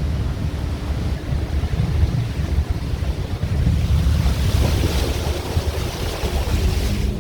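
Wind buffeting the microphone over a low rumble, typical of riding in the open on top of a moving 4x4. A hissing rush swells in the middle and cuts off sharply near the end.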